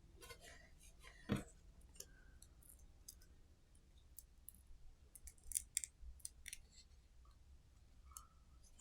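Faint clicks and light rustles of the small parts of a third-hand soldering stand being handled, with one knock just over a second in and a quick run of sharp clicks past the middle.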